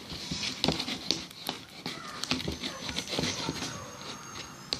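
A spoon stirring homemade glue-and-borax slime in a container: irregular sticky, wet clicks and squishes.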